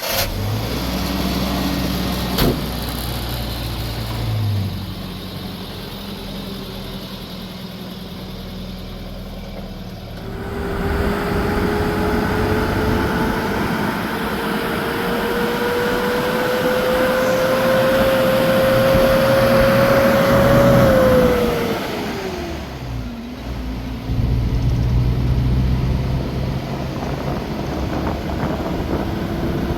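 A motor vehicle's engine runs at low revs, then pulls away. A whine climbs steadily as it gathers speed, drops off sharply after about twenty seconds as it eases off or changes gear, and then climbs again.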